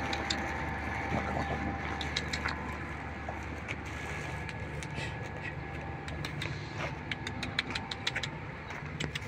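Steady low hum of an idling engine, with scattered short clicks over it.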